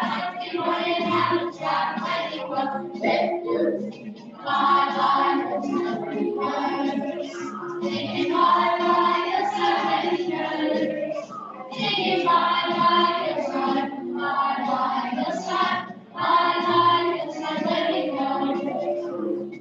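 A group of children singing a song together in phrases of a few seconds, with short breaks between lines.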